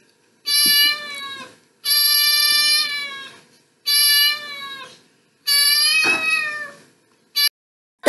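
Domestic cat meowing: four drawn-out meows, each about a second to a second and a half long with short pauses between, followed by a brief click near the end.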